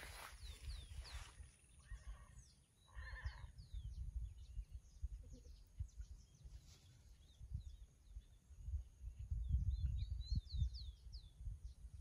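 Small birds chirping, with short high calls that rise and fall scattered throughout and a quick run of them near the end, over a gusty wind rumble on the microphone. About two to three seconds in, a brief wavering animal call is heard twice.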